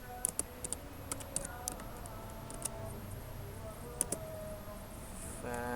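Computer keyboard typing: a dozen or so separate keystrokes at an uneven pace, mostly in the first three seconds and again about four seconds in. A short bit of voice comes right at the end.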